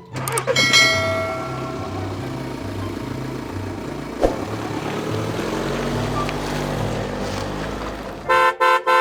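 A toy van's driving-away sound effect: a steady engine-and-road noise, ended near the end by a quick run of about four short horn toots. Light background music with a looping bass line plays underneath.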